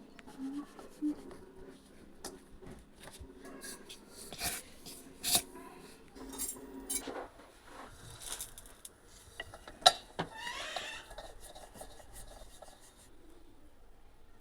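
Kitchen utensils and dishes clinking, knocking and scraping in scattered short bursts, with one sharp click about ten seconds in as the loudest sound.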